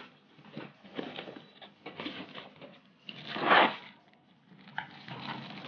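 Cardboard packaging handled by hand as a small box is opened: irregular scraping and rustling, with a louder rustle about three and a half seconds in as the plastic-wrapped dry fruit cutter is pulled out.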